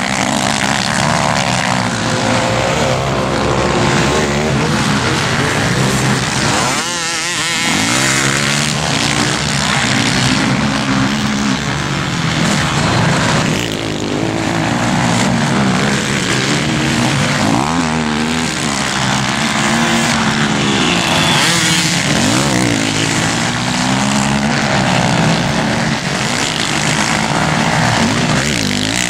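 Racing quad bike engines running hard, with their pitch rising and falling again and again as the riders rev up, shift and back off around the track.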